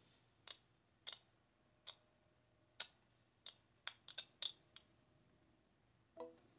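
Light, sharp clicks of a phone's keypad being tapped: about ten at an uneven pace, bunched close together around four seconds in, then one short, lower sound near the end.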